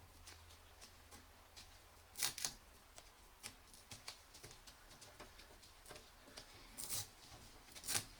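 Hands handling computer parts: scattered light clicks and rustles, with a few sharper clacks about two seconds in and again near the end.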